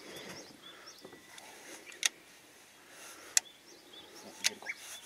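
Three sharp clicks, a second or so apart, over a quiet outdoor background with a few faint bird chirps.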